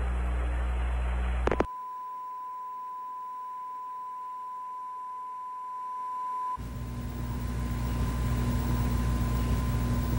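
A low hum and hiss of a radio transmission cut off with a click about a second and a half in. A single steady test tone follows, the broadcast test-card tone that goes with colour bars when the feed is lost. About six and a half seconds in, a low hum and hiss come back under a fainter tone.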